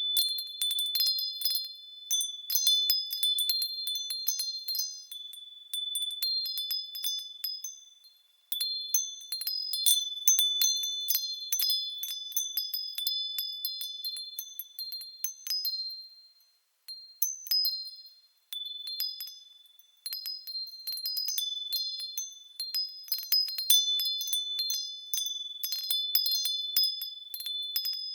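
Japanese wind chime (fūrin) ringing as the wind strikes it irregularly, a few high clear tones overlapping and ringing on. The ringing fades to almost nothing briefly about eight seconds in and again around sixteen to twenty seconds in, before the strikes pick up.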